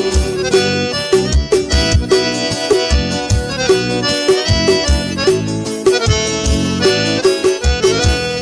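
Forró music: an instrumental passage with an accordion melody over a steady, regular drum and bass beat.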